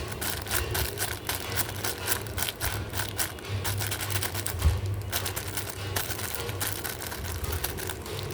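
Close-up crafting handling noise: quick irregular clicks and rustles of materials being handled, over a low steady hum, with one heavier thump about halfway through.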